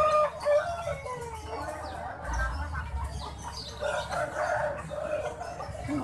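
Rooster crowing, an unusual crow said to sound like the name 'Jokowi', amid the clucking of other chickens, with several calls overlapping and the loudest in the first second.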